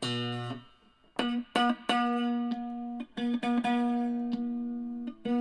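Les Paul electric guitar played through an amp, both humbuckers on with the phase switch engaged to test the out-of-phase sound. One note is cut short, then after a brief pause a run of picked notes and chords rings out.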